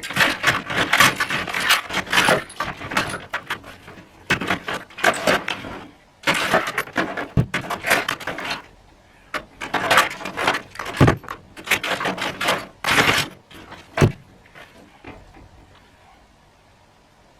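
Steel tool chest and metal tools clattering and rattling while being handled, in several bursts of jangling clinks, with a couple of sharp metallic knocks. It goes quiet near the end.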